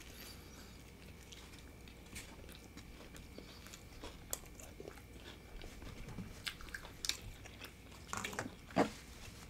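Two people chewing mouthfuls of tacos: soft, irregular mouth clicks and smacks, with a sharper smack near the end.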